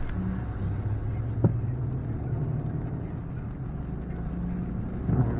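Car driving in heavy rain, heard from inside the cabin: steady low engine and road hum with rain on the windshield. A single sharp click about a second and a half in.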